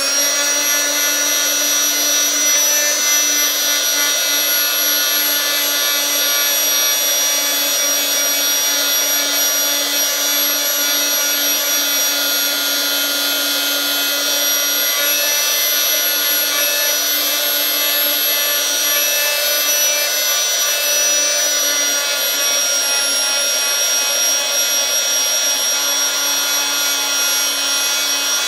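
Oscillating multi-tool with a triangular sanding pad running with a steady whine, its worn sandpaper rubbing dried residue off a steel putty knife blade.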